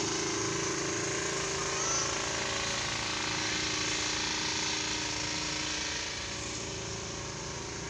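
Steady mechanical drone of a running motor or engine, easing slightly about six seconds in, with a brief small squeak about two seconds in.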